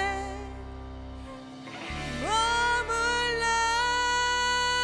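Female vocalist singing a Korean ballad live with band accompaniment. A sung line fades just after the start; then, about two seconds in, she takes up one long held note over sustained keyboard chords.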